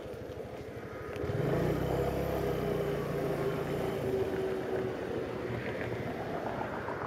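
Suzuki cruiser motorcycle engine idling with a low pulsing beat, then revving louder a little over a second in as the bike pulls away and accelerates.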